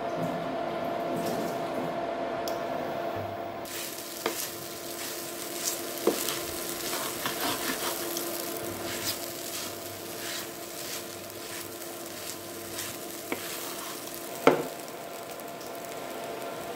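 Sabudana khichdi (tapioca pearls and potato) cooking in a non-stick frying pan: a steady light sizzle under a glass lid for the first few seconds. It is then stirred and turned with a spatula, with scattered scrapes and clicks on the pan and one sharper knock near the end.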